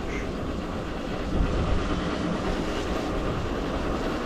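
Motorcycle engine running steadily while riding, under a constant rush of wind and road noise.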